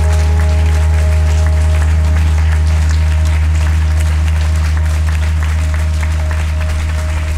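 Audience clapping over a sustained low orchestral chord, the held tones running on steadily beneath the applause.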